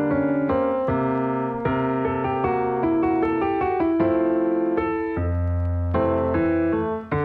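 Background music on piano: a gentle melody of notes changing about twice a second over held low notes, with a brief drop in level near the end.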